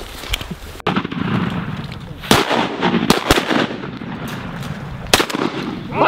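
Shotguns firing at ducks: about half a dozen shots in an uneven volley from several hunters, the loudest cluster two to three seconds in and one more near the end.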